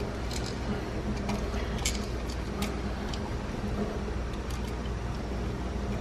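A few faint clicks and small taps of copper wire and a plastic GFCI outlet being handled as a wire end is bent, over a steady low background hum.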